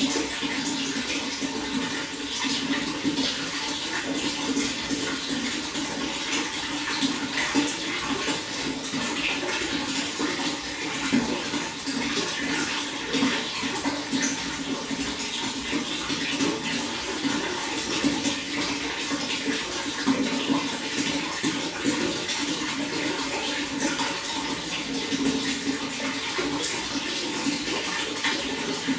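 Running water splashing steadily, an even rush without pause.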